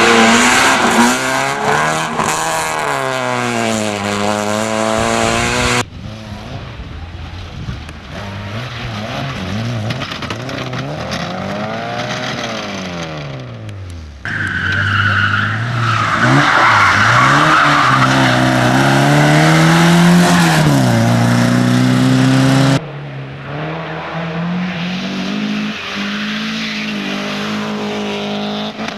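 Racing car engines revving hard, their pitch climbing and dropping through gear changes, in several clips that cut abruptly one to the next. A loud hissing noise rides over the engine in the middle clip.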